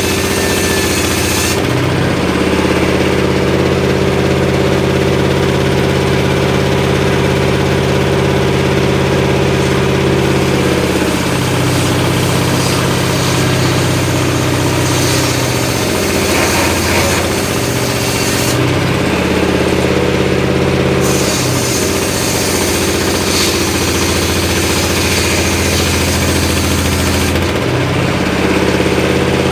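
Engine-driven homemade circular saw running while it rips short mahogany boards. The engine note sags and recovers several times as the blade takes the load of each cut, over bursts of cutting hiss.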